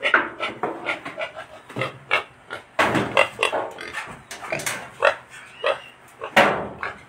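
A pig grunting in a rapid string of short, irregular calls, loudest about three seconds in and again near the end.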